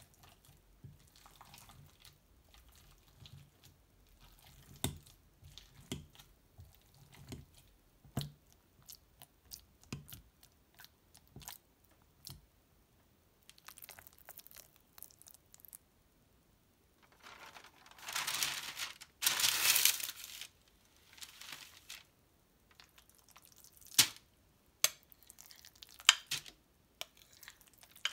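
Metal potato masher squishing soft, overripe avocado flesh in a glass bowl, with soft clicks as it presses down. A few seconds of loud rustling come past the middle, and near the end a few sharp knocks.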